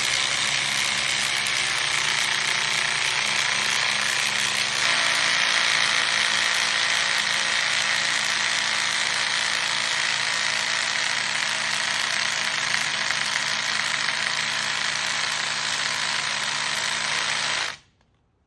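Two cordless drills, a Hercules and a DeWalt 20V Max, running at the same time with a steady gear whine and clatter. The sound stops suddenly near the end.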